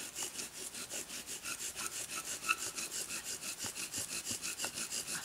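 Balsam fir bow drill at work: the spindle is spun in the fireboard by quick back-and-forth bow strokes, making a steady rhythmic rasping squeak at about five strokes a second. The wood is grinding hot enough to smoke as he works for an ember.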